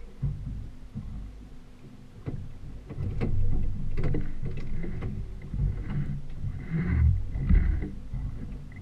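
Low, uneven rumble with scattered knocks from a small outboard fishing boat on the water. It gets louder in the second half.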